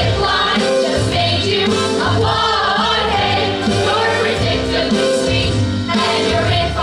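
A mixed chorus of singers performing a Broadway-style show tune with instrumental accompaniment.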